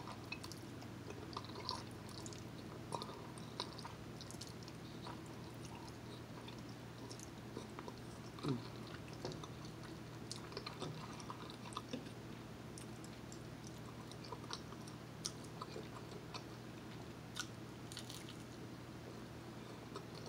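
Close-up mouth sounds of chewing fettuccine alfredo and garlic bread: soft wet smacks and small clicks scattered irregularly throughout, over a steady low hum.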